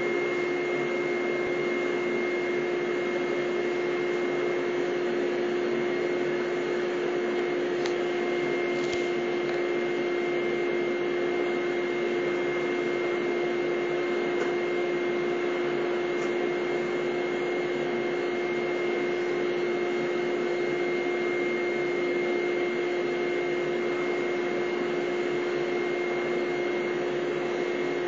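Vacuum cleaner running steadily with a constant hum and whine, its floor nozzle being drawn through a St Bernard's coat.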